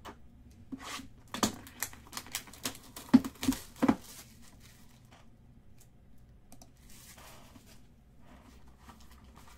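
Typing on a computer keyboard: a quick, irregular run of key clicks for about three seconds, then only faint rustling.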